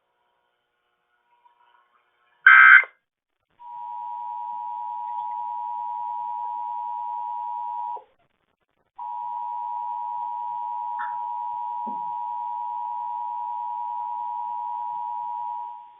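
A short burst of Emergency Alert System digital data, then the EAS two-tone attention signal: a steady, piercing dual tone held for about four seconds, cut off for a second, then resuming for about seven more.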